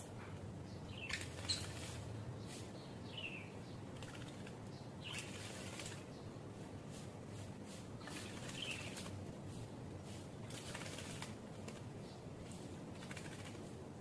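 Asian pied starling bathing, flapping its wings in water: a few bursts of splashing about a second long, with short chirps between them.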